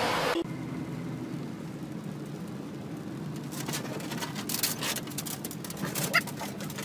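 A loud rushing noise cuts off abruptly within the first half second. It gives way to the steady hum of a vehicle's cabin while driving in rain with the windshield wipers on, and scattered clicks and taps. A few short high squeaks come near the end.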